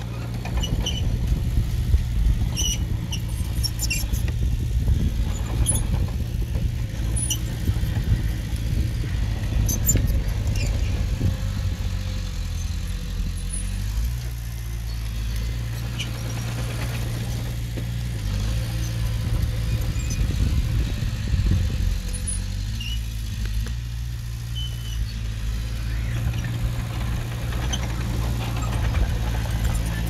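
Heavy diesel earthmoving machinery running steadily with a low engine drone. Short high squeaks and clicks of metal come and go over it.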